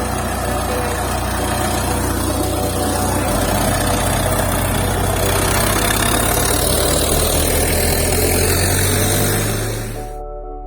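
Vehicle engine running with a steady low hum under an even hiss; it cuts off abruptly about ten seconds in.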